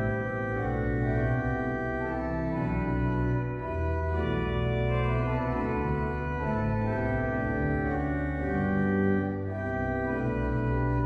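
The pipe organ of Sct. Morten's Church, Randers, playing a chorale prelude: held chords that move in steps over deep bass notes.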